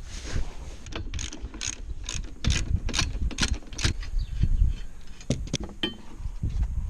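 A run of sharp mechanical clicks, about two or three a second, over a low rumble.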